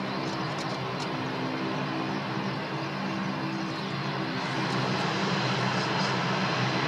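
Boeing 787-8 airliner's Rolls-Royce Trent 1000 turbofans at taxi power: a steady jet hum with a low droning tone, growing a little louder about four seconds in as the aircraft taxis past.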